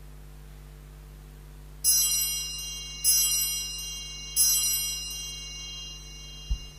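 Altar bell rung three times, about a second apart, each stroke ringing on and fading, marking the elevation of the chalice at the consecration of the Mass. A short low thump follows near the end.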